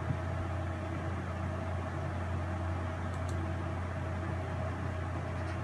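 Steady low hum with a faint even hiss: room tone, no events.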